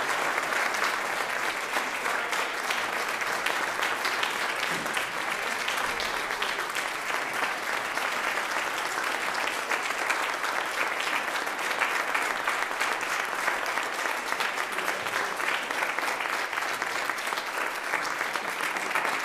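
A congregation applauding, many hands clapping steadily without a break.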